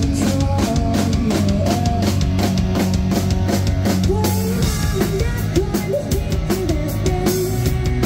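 Rock band playing live: drum kit, electric guitars and electric bass through a club PA. A cymbal crash about four seconds in, the drum hits thinning out briefly before the full beat comes back near the end.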